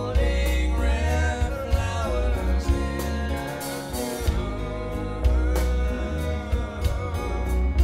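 A live acoustic rock recording, a male singing voice over strummed acoustic guitar and bass, played back through Polk L800 tower loudspeakers and picked up by a microphone in the listening room.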